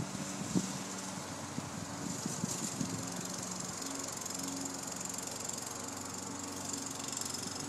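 Walk-behind gas lawn mower engine running steadily under load as it is pushed across grass, with a sharp tick about half a second in.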